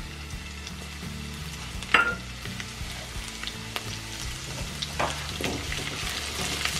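Chopped garlic and cumin seeds sizzling in hot refined oil in a metal kadai, the tempering stage of a curry, with a steady hiss that gets livelier in the last couple of seconds. A few sharp clicks cut through it, the loudest about two seconds in. Near the end a flat metal spatula stirs the pan.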